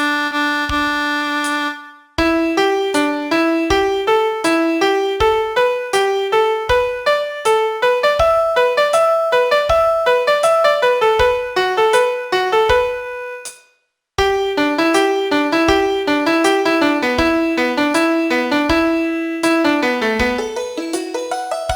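Digital piano playing a quick, jumpy melody over a low note on each beat. A held note breaks off about two seconds in and, after a short gap, the melody starts; it stops again briefly about two-thirds of the way through, then carries on.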